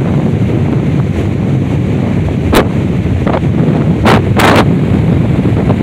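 Strong wind buffeting the microphone, a loud steady rumble, with a few sharp pops from gusts hitting the mic around the middle.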